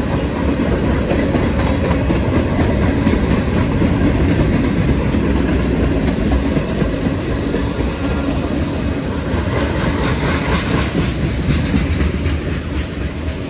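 Freight train passing close by, a string of tank cars and then autorack cars. The steel wheels on the rails make a loud, steady rolling noise.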